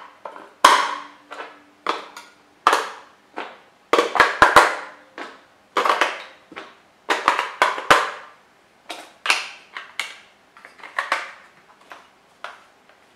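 AA batteries being pushed one by one into the plastic battery tray of an RC transmitter: a run of irregular sharp plastic clicks and clacks as the cells knock and snap into place and the transmitter is handled.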